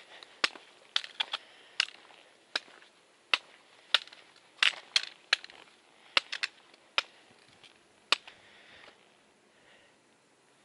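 A hiker walking on a rocky trail: irregular sharp clicks and taps on stone, about one or two a second, that stop about eight seconds in.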